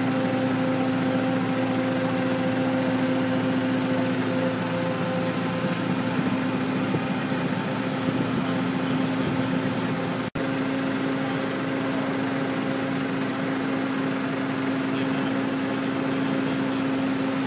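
An engine running steadily with a constant pitched hum, cut off very briefly about ten seconds in.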